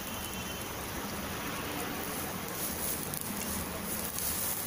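Ginger-garlic paste, dried curry leaves and asafoetida sizzling in hot oil in a pan, a steady hiss.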